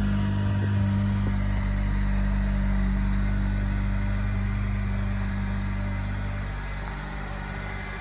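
2010 Honda Accord sedan's engine idling steadily, growing a little fainter near the end.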